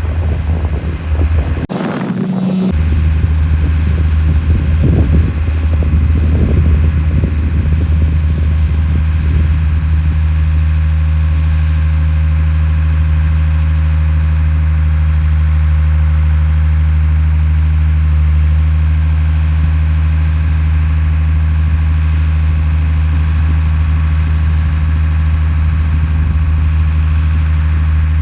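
Concrete mixer truck's engine running steadily at a low, even idle, with a brief break in the sound about two seconds in.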